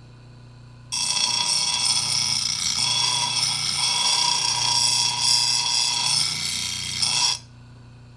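Grinder running with a steady hum, then grinding a steel lawnmower blade for about six and a half seconds with a loud, hissing rasp before it comes off the metal. The grinding takes metal off the blade's low side to bring it back into balance.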